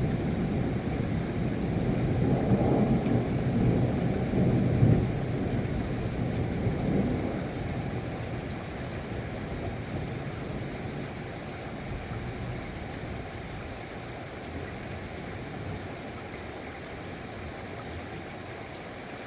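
Rain falling steadily with a long roll of thunder rumbling over it that fades away after about seven seconds, leaving the rain alone.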